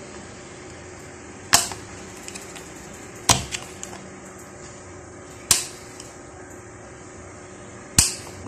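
Four sharp metal clicks, roughly two seconds apart, with a few fainter ticks between, as a flat screwdriver tip pries at the stiff metal lock that holds an electric fan's bushing: a thick lock that is hard to lift.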